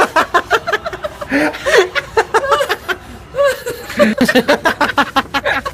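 A man laughing heartily in several bouts of rapid, pulsing laughter, with short breaks between bouts.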